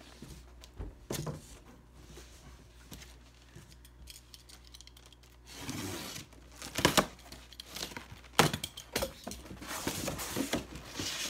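Cardboard shipping boxes and their plastic packing being handled: scattered rustling and light knocks, two sharp knocks in the second half, and crinkling near the end.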